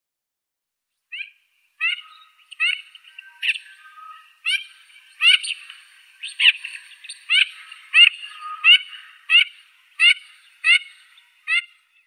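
Wood duck calling: a run of about fourteen short, rising calls, roughly one every three quarters of a second, starting about a second in.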